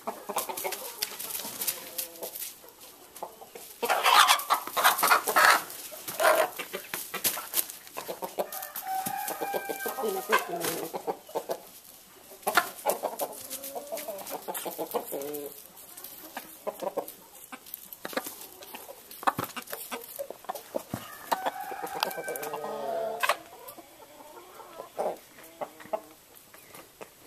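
Chickens clucking and calling, with a loud noisy flurry about four seconds in and many small clicks and rustles in straw.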